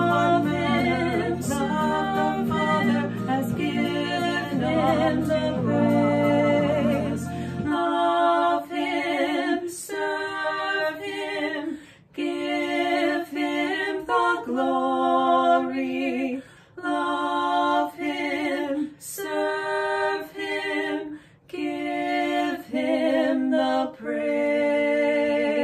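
Two women singing a hymn chorus as a duet. A low backing part under the voices stops about eight seconds in, and after that the voices carry on alone in short phrases with brief breaks between them.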